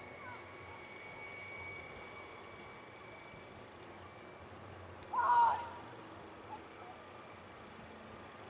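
Steady, high-pitched insect chirring in a quiet outdoor setting, with a faint steady tone over the first few seconds and one short, louder call about five seconds in. The approaching train is not clearly heard.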